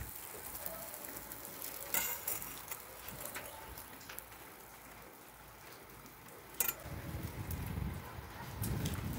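Quiet food handling while a burger is stacked on a wooden cutting board with a knife: soft scrapes and two sharp clicks over a faint crackling hiss. A low rumble comes in near the end.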